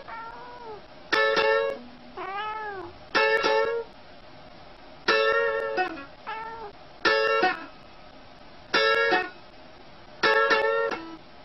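A single guitar note or chord plucked about every two seconds, six times. Between the notes come softer cat meows that rise and fall in pitch.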